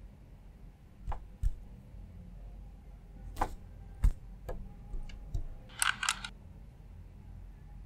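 Objects being handled: scattered short knocks and clicks, the loudest about four seconds in, then a brief cluster of scraping rustles about six seconds in.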